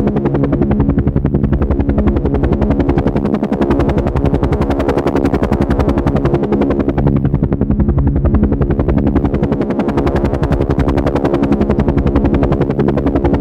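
Helicopter rotor chopping at a fast, even beat over a steady engine drone.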